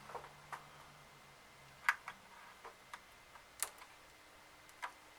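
Light, irregular clicks and taps, about eight in five seconds, from hands handling a laptop during repair.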